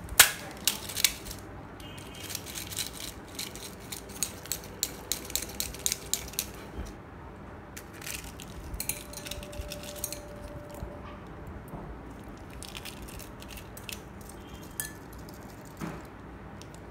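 A painted egg's shell being cracked and crushed open by hand over a glass bowl, with beads and shell pieces clicking and rattling against the glass. A sharp crack just after the start is the loudest sound, followed by a quick run of small clicks for several seconds, then scattered ones.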